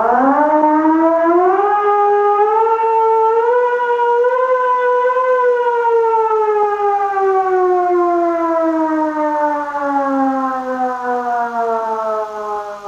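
Civil defense siren sounding one long wail as the attention signal of an emergency alert: the pitch climbs for about the first five seconds, then falls slowly through the rest.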